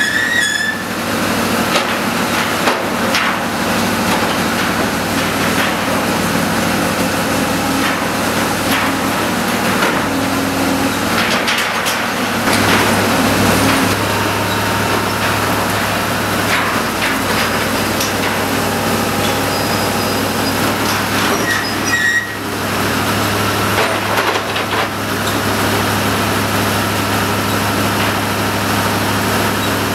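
Menck M154 cable crane's diesel engine running steadily under load while its clamshell grab works, with irregular knocks and clatter of broken masonry and rubble. A short squeal comes near the start and again about two-thirds of the way through.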